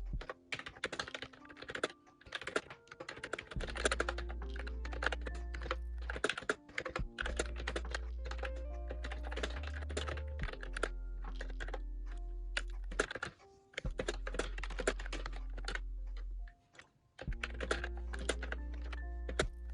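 Typing on an Ajazz Bluetooth tablet keyboard: fast runs of key clicks with brief pauses, over background music with a steady bass.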